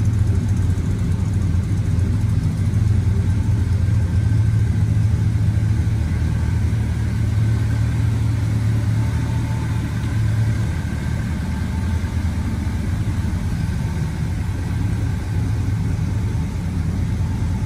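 1971 Ford F-250 Highboy pickup's engine idling steadily with a low, even hum.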